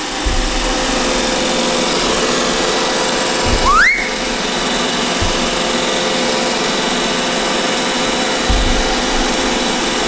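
iRobot Roomba i7+ robot vacuum running as it drives across the floor, a steady motor whine, with a short rising chirp about four seconds in.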